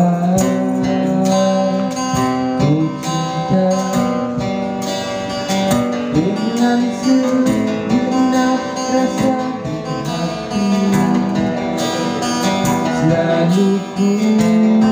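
Live acoustic band playing: a strummed acoustic guitar, a male voice singing the melody, and hand-slapped cajon beats keeping a steady rhythm.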